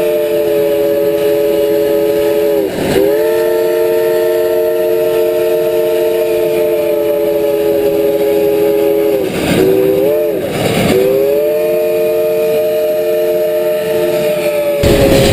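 Reading & Northern 425's steam chime whistle blowing one long chord, which sags in pitch and breaks briefly about three seconds in and twice around ten seconds in as the valve is worked, then fades near the end under a louder rushing noise.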